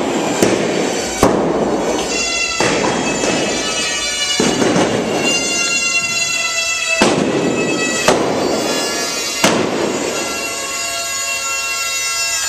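Rubber balloons played as instruments: several squeal at once as air is let out through their stretched necks, making a reedy drone of many held pitches. Sharp pops cut through it several times, three close together near the start and three more from about seven to nine and a half seconds in.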